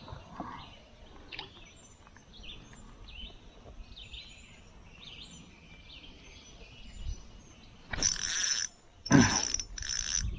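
Small birds chirping in the woods around the water, many short quick calls. Near the end come four short, loud rasping bursts.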